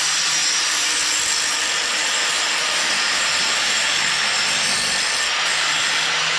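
Power tool grinding or cutting metal, making a steady, high-pitched hiss.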